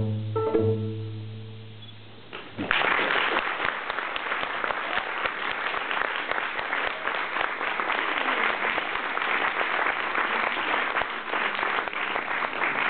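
A children's string ensemble of violins and cello plays its final notes, a low cello note ringing out and fading. About two and a half seconds in, an audience starts applauding and keeps clapping steadily.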